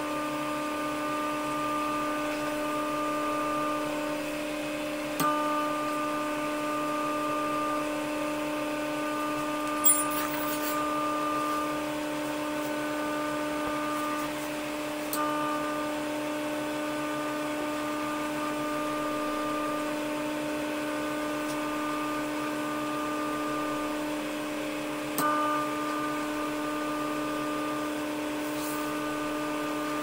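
Samix microwave oven running on medium-high and heating: a steady hum, with a higher tone that drops out briefly and comes back with a click about every ten seconds as the power setting cycles. One sharp tick about ten seconds in.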